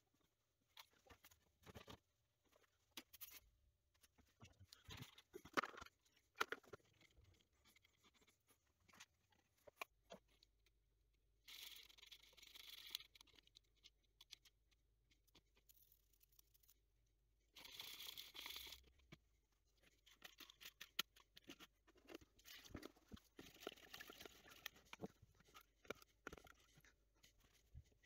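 Faint, scattered clinks and rattles of small steel Commodore 64 keyboard key springs being handled in plastic tubs and a bowl of water, with two short hissing bursts about twelve and eighteen seconds in.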